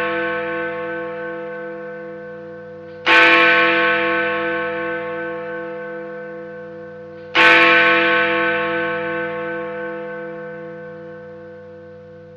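Big Ben hour bell sound effect: the great bell struck twice, about four seconds apart, each stroke ringing on and slowly dying away over a low, wavering hum.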